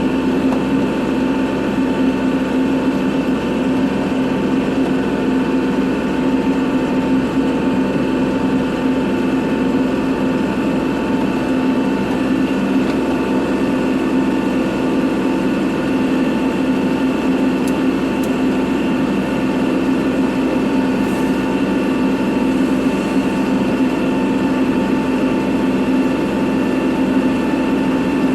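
Kubota tractor's diesel engine running steadily at constant speed, its pitch holding level throughout.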